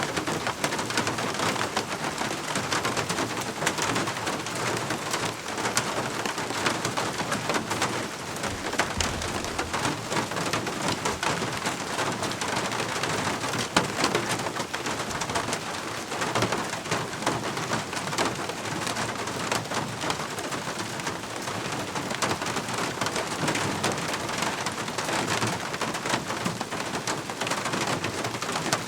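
Steady rain falling: an even hiss with many separate drops striking.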